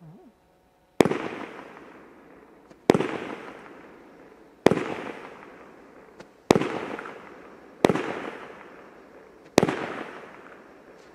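Consumer New Year's fireworks going off: six sharp bangs, one every one and a half to two seconds, each trailing off in a long echo.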